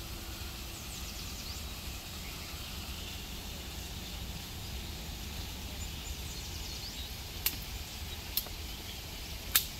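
Steady rushing of a small waterfall and stream, with small birds chirping faintly now and then. Near the end come three sharp snaps of dry sticks being broken, the last the loudest.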